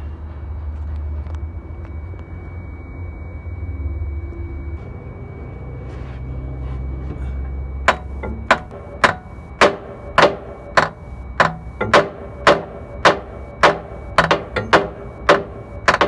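Hammer blows on a heavy-truck starter motor that won't crank: a steady series of sharp metallic knocks at about two a second, starting about eight seconds in, each with a short ring. The starter is struck to jar loose a sticking solenoid. Before the blows there is a low steady rumble.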